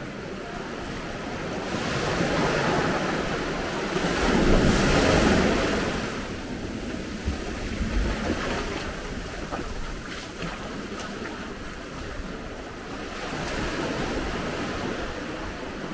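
Sea waves washing in on the shore in swells, the loudest about five seconds in, with wind buffeting the microphone.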